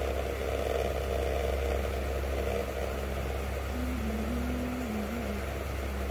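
Steady low mechanical rumble and hum, with a faint wavering tone for a moment a little past halfway.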